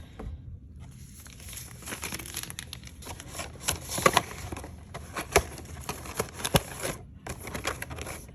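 Plastic packaging crinkling and rustling as it is handled and opened, with irregular sharp crackles, loudest about four seconds in.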